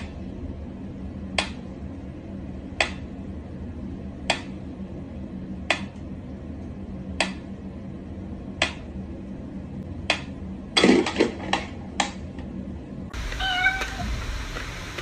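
Cat meowing in short, high calls evenly spaced about every second and a half, with a quicker flurry of calls about eleven seconds in. Near the end, after a change of background, comes a different, more drawn-out pitched meow.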